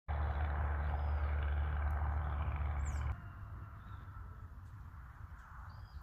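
Outdoor ambience with a few faint high bird chirps. A loud low rumble with hiss fills the first three seconds and cuts off suddenly.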